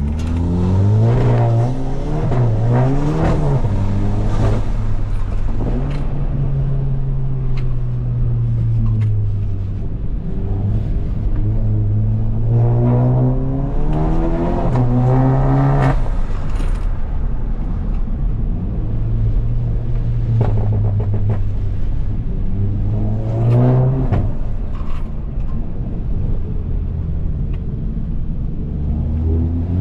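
Volkswagen Jetta GLI's 2.0-litre turbocharged four-cylinder engine being driven hard through an autocross course. It revs up under full throttle, then drops back as the driver lifts or shifts, with long climbs about a second in, around the middle, and again near the end.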